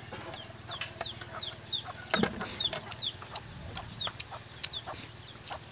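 Chickens peeping and clucking in short chirps that fall in pitch, a couple a second, over a steady high hiss, with one louder sound about two seconds in.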